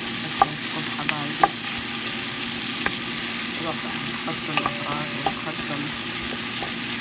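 Sliced onions, bell peppers and tomatoes sizzling as they fry in oil in a pot: a steady sizzle. A wooden spoon stirring them gives scattered sharp clicks and scrapes against the pot.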